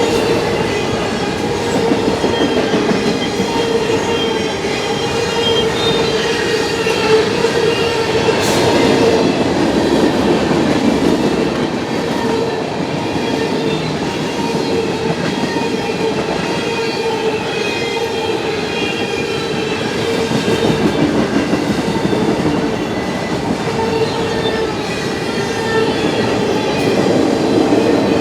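Freight train rolling past close by, steel wheels running on the rails with a steady ringing squeal over the rumble of the cars. A single sharp click sounds about a third of the way through.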